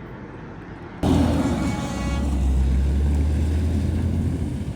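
Semi-truck going by close at highway speed: a sudden loud rush of engine and tyre noise about a second in, with a heavy low rumble that carries on.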